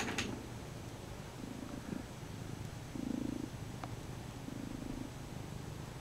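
Bombay cat purring close to the microphone, the purr swelling about every second and a half with each breath, with a couple of brief clicks near the start.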